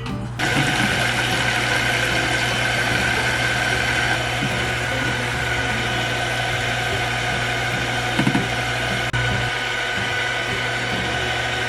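Electric mixer whipping egg whites with sugar, its motor starting about half a second in and then running steadily with a high whine.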